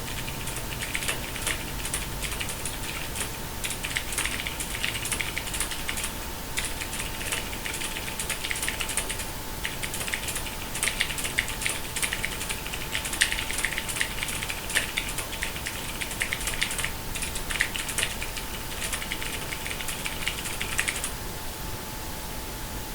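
Mechanical keyboard with Cherry MX Silver Speed linear switches typed on fast, a dense run of keystroke clicks in bursts with short breaks. The typing stops about two seconds before the end.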